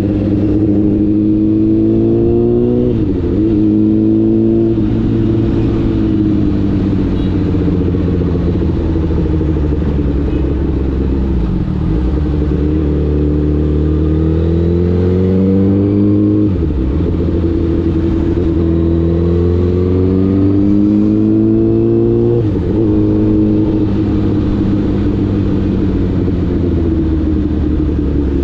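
Honda CBR1000RR's inline-four engine pulling under way, its pitch climbing and then dropping sharply at gear changes, four times.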